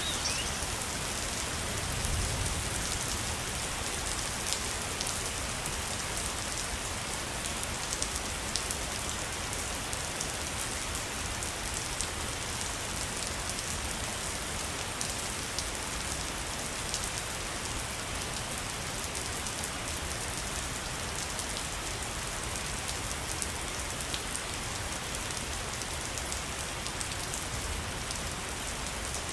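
Waterfall: a steady, even rush of falling water with small sharp splashes scattered through it.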